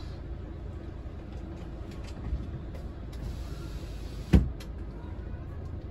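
Motorhome engine running at low speed, a steady low rumble heard from inside the cab. A single sharp knock about four seconds in.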